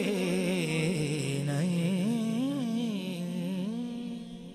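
A male voice singing a long wordless melodic line at the close of an Urdu devotional kalam, the pitch wavering up and down in slow glides and fading away near the end.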